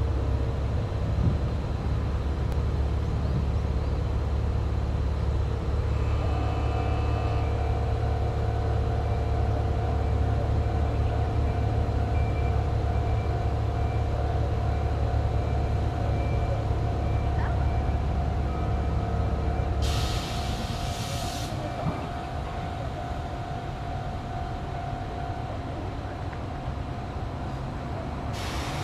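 Izuhakone Railway 1300 series electric train standing at the platform, its under-floor equipment running with a steady low rumble. About two-thirds of the way through the rumble drops away as a short burst of compressed air hisses out. Another brief air hiss comes at the very end.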